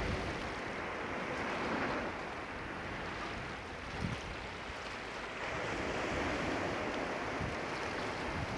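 Calm sea water gently lapping and washing against shoreline rocks, swelling and easing slowly. A brief puff of wind on the microphone comes about four seconds in.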